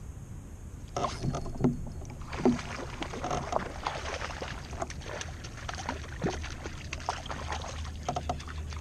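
Water lapping and slapping against the plastic hull of a Vibe Maverick 120 fishing paddle board, with many scattered light clicks and knocks over a steady low rumble.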